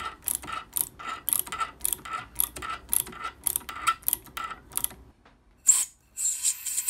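Ratchet tap wrench clicking about four times a second as a tap is worked by hand into a drilled hole in a steel part, stopping about five seconds in. Near the end, a plastic packet crinkles as it is handled.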